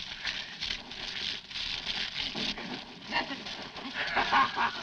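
Water spraying from a hose in a hissing rush, joined about three seconds in by a high, quavering vocal cry in rapid pulses, about five a second.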